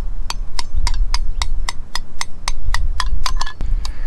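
Rapid metallic clinks of camp cook gear, about four a second, evenly spaced and each ringing briefly, with wind rumbling on the microphone.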